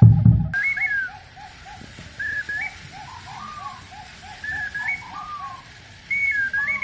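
Jungle bird calls imitated by performers with simple instruments and voices: a run of short, low cooing notes, about three a second, under repeated hooked, whistled calls higher up. A loud low thump opens it.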